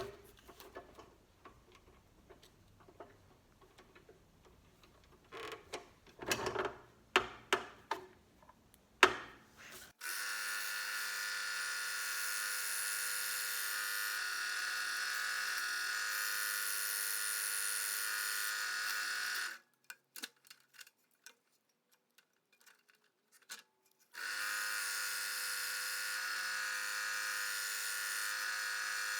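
Scroll saw running steadily while cutting thin Baltic birch plywood. It starts about ten seconds in, stops suddenly near twenty seconds, and starts again about four seconds later. Before it starts there are a few light clicks and knocks.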